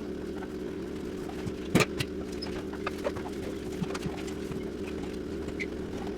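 Scattered knocks and clanks of demolition work on a prefab cold room over a steady machine hum. The loudest knock comes about two seconds in.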